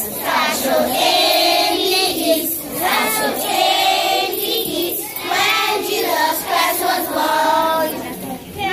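A group of children singing a Christmas carol together, in held sung phrases with short breaks between them.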